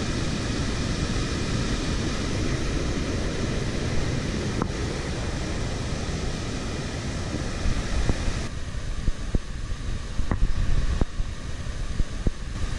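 Mountain stream rushing down a white-water cascade, a dense steady roar of water. About eight seconds in it gives way to gusty wind on the microphone, with a few faint knocks.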